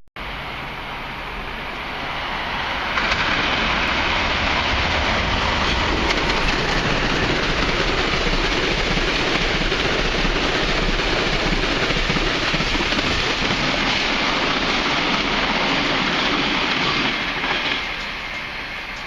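Electric passenger train passing through a station at speed: wheel and rail noise builds over the first few seconds, holds steady and loud while the cars go by, and falls away near the end.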